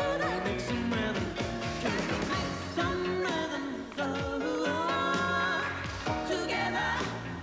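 Soundtrack pop song: a singer over a band with a steady beat.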